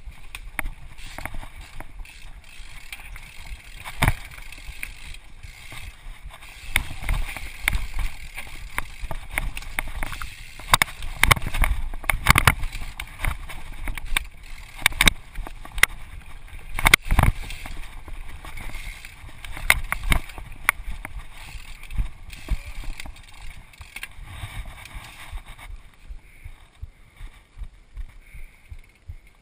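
Mountain bike rattling over rocky singletrack, picked up by a GoPro in its housing on the rider's chest: a steady rumble of tyres and frame with many sharp knocks and clunks as it hits rocks and roots. The knocks are densest and loudest about halfway through, then ease to lighter, more regular ticking near the end as the pace slows.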